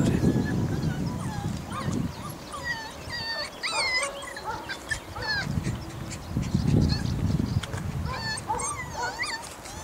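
A small dog whining in many short, high, wavering cries that rise and fall. A low rumble on the microphone comes and goes, at the start and again about six to eight seconds in.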